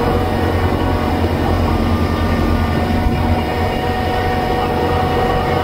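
Kubota BX23S compact tractor's diesel engine running steadily under load, driving its PTO-powered front snowblower, which throws snow out of the chute: a steady low hum with a constant mechanical whine.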